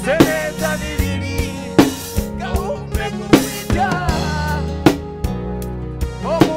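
Live Afropop band music: a steady drum-kit beat of kick and snare under pitched instruments.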